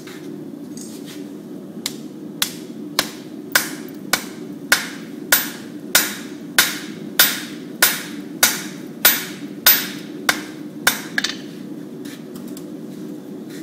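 Blacksmith's hand hammer striking a white-hot steel bar on an anvil: a steady run of about sixteen ringing blows, roughly one every 0.6 seconds, which stops about 11 seconds in and is followed by a few light taps. A steady low hum runs underneath.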